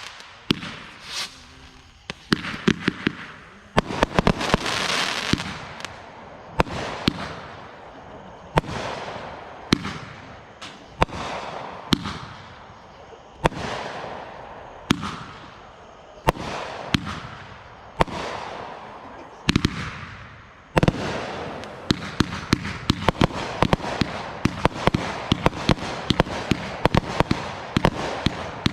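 Consumer fireworks going off: a string of sharp bangs, each trailing into hissing crackle. About two-thirds of the way through comes a dense run of rapid pops and crackling.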